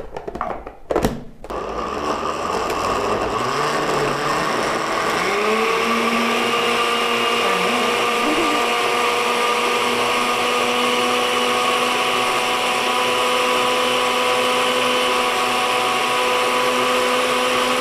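Countertop blender puréeing a thick salsa of roasted tomatoes, onion, garlic and spices, the chunky red mix turning smooth. After a couple of knocks at the start, the motor starts about a second in, rises in pitch over the next few seconds, then runs steadily.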